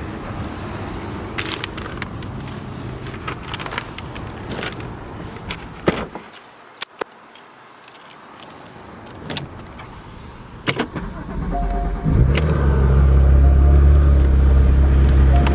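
Clicks, knocks and rattles of keys and car controls. About twelve seconds in, a car engine starts and settles into a steady, loud idle.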